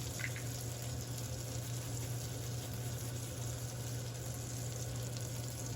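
Hot oil sizzling steadily in a frying pan as fresh garlic is grated into it, with a steady low hum underneath.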